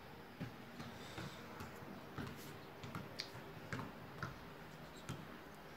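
Faint, irregular soft clicks and taps, a few a second, of a phone being handled and shifted while it films.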